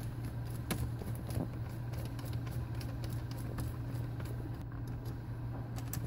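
Ratchet screwdriver with a Torx bit turning out screws from an oscilloscope's sheet-metal rear panel, giving scattered light clicks over a steady low hum.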